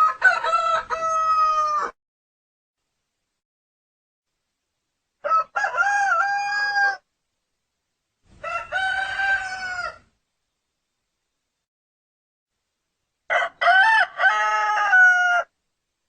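Rooster crowing four times, each crow about two seconds long, with silent gaps between.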